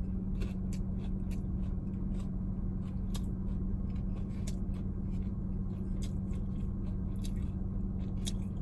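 Close-up chewing and biting of a fried-chicken sandwich with crunchy Cheetos, giving soft irregular crunchy clicks, over a steady low hum inside a car's cabin.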